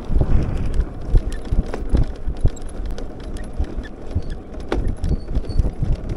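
Electric scooter riding over a rough concrete lane: irregular knocking and rattling from the bike over the bumps, over a low rumble of wind on the microphone.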